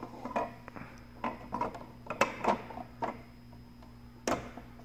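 Scattered light clicks and knocks of plastic parts being handled as a duct smoke detector's sampling tube is fitted into its housing, over a steady faint hum.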